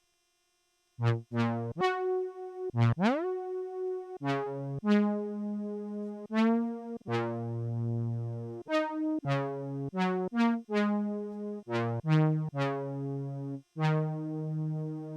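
Behringer Phara-O Mini analogue synthesizer playing a melodic line of short and held notes, each opening bright and quickly mellowing, with one note sliding up in pitch about three seconds in. It starts after about a second of silence, with no effects added.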